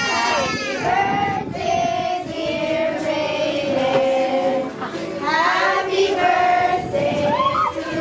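A group of children and women singing together, holding long drawn-out notes.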